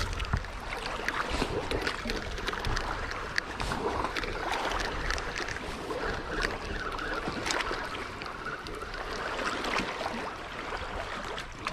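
Shoreline ambience: water moving and wind, with scattered short clicks and knocks.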